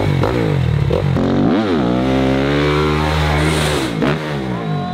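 Motocross bike engine revving hard as it accelerates up to the jump ramp. The pitch shoots up and drops back about a second and a half in, holds high, then falls away near the end as the bike leaves the ramp and flies.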